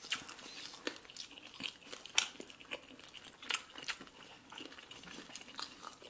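Close-up chewing and mouth sounds of people eating by hand, with irregular small clicks several times a second.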